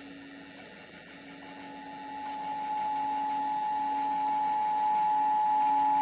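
Emergency Alert System attention tone for a flash flood warning: a steady high alarm tone that swells in level over the first few seconds and then holds.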